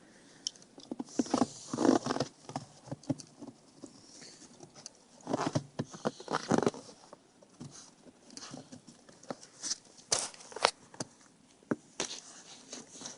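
Light, irregular pattering steps and scuffs on a playground surface, with a few short louder rustling scrapes about a second in and again around five to seven seconds in.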